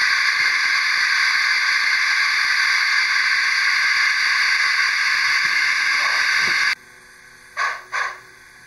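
Kiss BR 98.7 gauge 1 model steam locomotive's sound system playing a loud, steady steam hiss that cuts off suddenly about seven seconds in. Two short chuffs about half a second apart follow as the locomotive pulls away.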